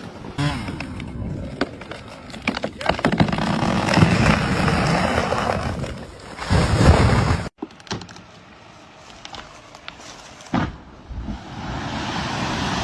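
Trees falling, with wood cracking and branches crashing. It comes in separate short clips with abrupt cuts, one about half a second in and another about halfway through.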